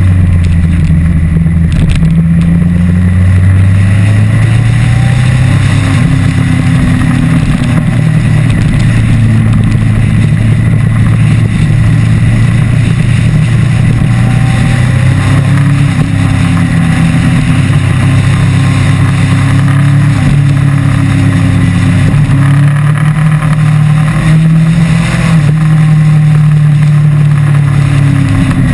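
Motorcycle engine running steadily while riding through bends, its pitch rising and falling slowly with the throttle, over rough wind noise on the microphone.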